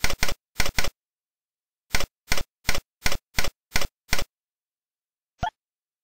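Tux Paint's button-click sound effect as the stamp page arrow is clicked over and over: eleven quick, identical clicks in two runs. A single different short blip follows about five and a half seconds in.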